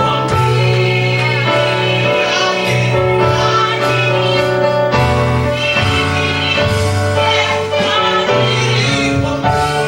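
Gospel music: a choir singing over instrumental accompaniment with a steady bass line that changes notes every second or two.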